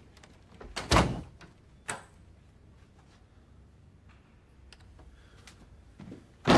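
An office door pushed shut with a heavy thud about a second in, followed a second later by a sharp click. A few faint small clicks follow.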